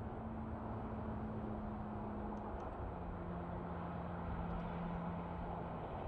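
A vehicle engine heard over a steady low rumble, its hum dropping slightly in pitch a little under halfway through.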